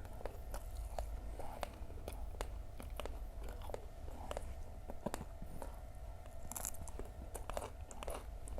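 Close-miked chewing of gorengan, Indonesian deep-fried snacks, eaten with fresh chilies: irregular crunches and wet mouth clicks.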